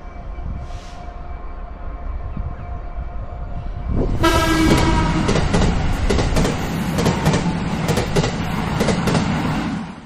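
DB Cargo Class 66 diesel locomotive (EMD two-stroke V12) running with a steady low rumble. About four seconds in, the sound suddenly gets much louder with a short horn note, followed by a rapid clatter of wheels over the rail joints as it comes close.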